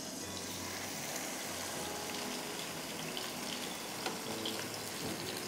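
A marinated beef undercut sizzling steadily in hot oil in a wok. The sizzle starts as the meat is laid in, with a couple of light clicks near the end.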